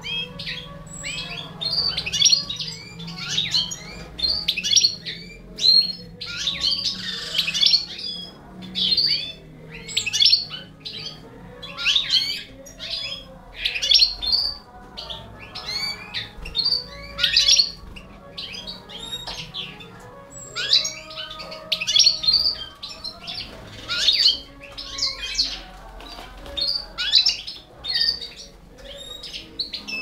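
Canary nestlings begging as a Balkan goldfinch feeds them: clusters of high-pitched cheeps about once a second, with no break.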